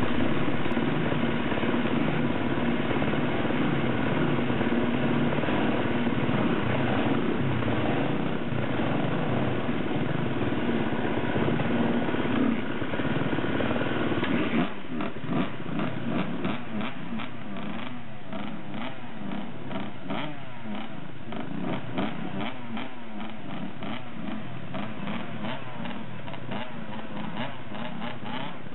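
Motorcycle engines running. For about the first half one engine holds a steady pitch. About halfway the sound changes suddenly to dirt bike engines idling close by with an uneven pulsing beat.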